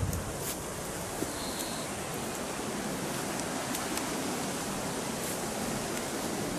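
Steady outdoor hiss of wind and distant surf on an exposed sea cape, with a few faint scattered ticks.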